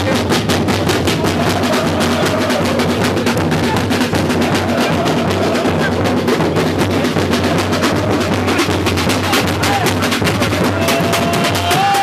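A football supporters' drum section with big bass drums (surdos) beating a fast, steady, driving rhythm. Near the end a long shout rises over the drums.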